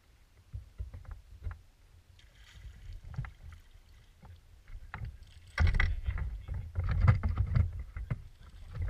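A hooked bass thrashing and splashing at the surface beside a fishing boat, with knocks and bumps on the boat. The splashing and knocking grow louder and busier from about halfway through, as the fish is brought alongside to be landed.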